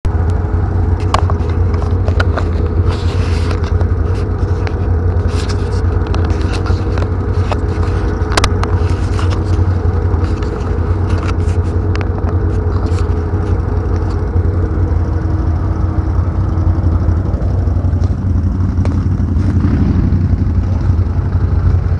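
A steady, loud low mechanical drone with a few level tones above it that fade out past the middle, and scattered clicks and knocks over the first half.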